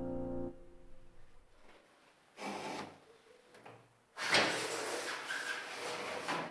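An aluminium sliding door scraping along its track: a short slide and then a longer one of about two seconds. Background piano music fades out at the start.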